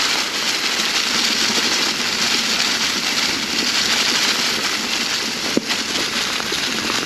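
Mountain bike tyres rolling through a thick layer of dry fall leaves, a steady crackling rustle. One sharp knock about five and a half seconds in.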